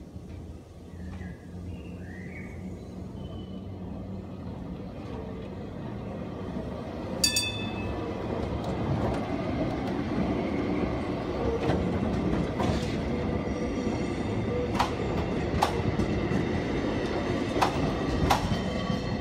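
Metre-gauge Kirnitzschtalbahn tram and its trailers passing close by, a rumble of wheels on rail that grows steadily louder. A short metallic ring sounds about seven seconds in, and sharp wheel clicks on the track come in the second half.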